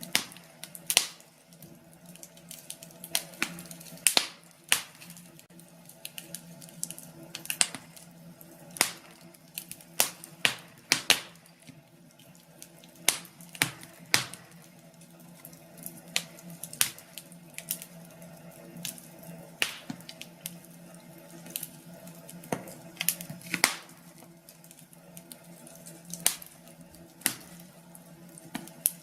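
Wood fire in a fireplace crackling and popping, with irregular sharp snaps several times a second over a low steady hum.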